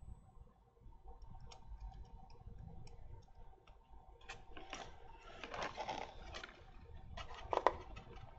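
Faint ticks and clicks, then scraping and rustling, of fingers handling a small plastic model biplane's wing and struts while threading rigging line. A few sharper clicks come near the end, one louder than the rest.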